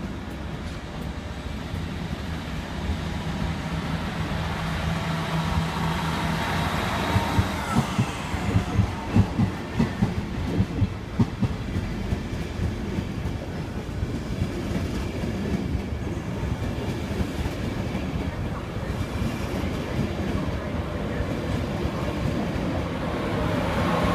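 InterCity 225 electric train pulling away past the platform, its Mark 4 coaches rolling by with a steady rumble. For several seconds the wheels clack over rail joints in quick pairs. Near the end the sound grows louder as the Class 91 locomotive at the rear draws level.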